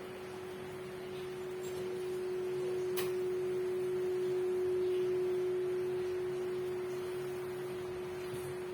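A single steady pure tone, swelling a little toward the middle and easing off, with one faint click about three seconds in.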